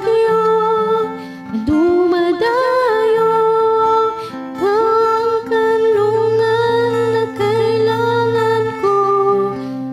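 A woman singing a slow Tagalog ballad, holding long notes, over a guitar accompaniment.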